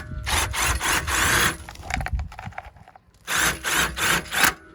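Cordless drill driving a Grey Wolf travel trailer's stabilizer jack down onto its pad, in two runs of about a second each with a short pause between.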